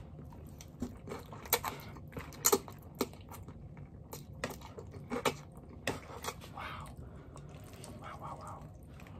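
Eating sounds from a mouthful of spicy instant noodles: chewing and slurping, with scattered sharp clicks and smacks.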